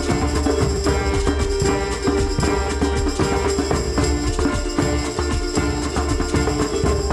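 Background music with a steady beat, with tambourine-like percussion over sustained pitched notes.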